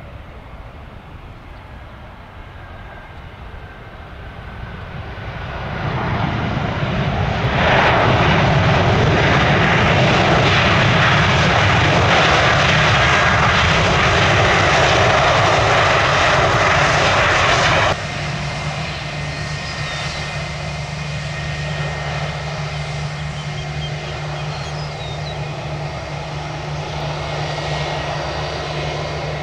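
Jet engines of a jetBlue airliner just after touchdown. The noise swells about six seconds in and holds loud for about ten seconds, as with reverse thrust on the landing roll. It then drops suddenly to a lower, steady engine run with a constant low hum as the jet rolls slowly.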